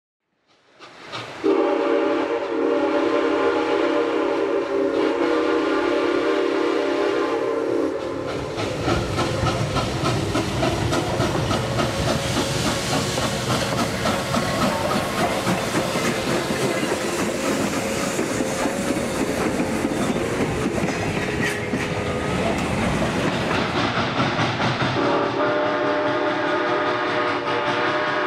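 A train whistle sounding a held chord of several notes for about six seconds. Then the train runs by with a steady rhythmic wheel clatter, and the whistle sounds again near the end.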